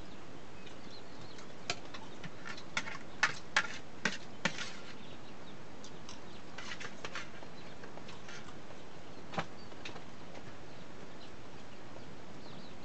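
Sharp clicks and clacks of tableware and shells while people eat: six in quick succession between about two and five seconds in and one more near nine seconds, over a steady hiss.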